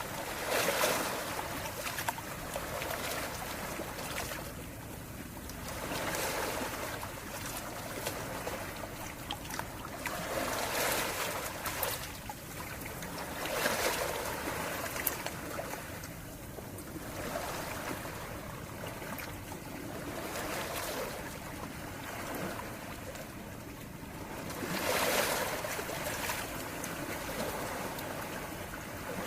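Calm sea waves washing ashore one after another. Each swells and fades over a few seconds, with a longer lull between waves in the middle.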